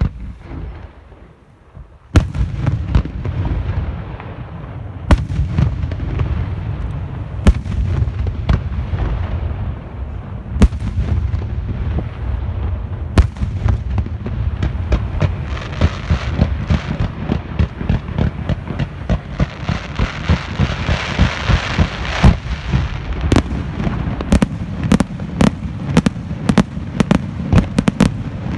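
Aerial fireworks shells bursting in a continuous barrage of deep booms and crackling, with sharp loud reports every second or so. It starts quieter, jumps in loudness about two seconds in, and the bangs come thicker and faster near the end.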